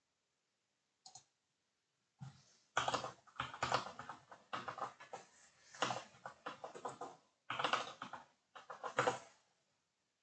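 Typing on a computer keyboard: a single keystroke about a second in, then a run of keystrokes lasting about seven seconds.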